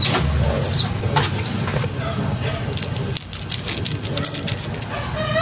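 Drink stirred in a glass with a straw: scattered clinks and crackles over a steady low rumble.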